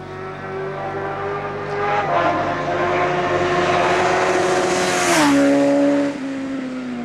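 Sport motorcycle engine held at a steady high note while the bike rides a wheelie, growing louder as it approaches; about five seconds in its note drops sharply as it passes, then the sound fades.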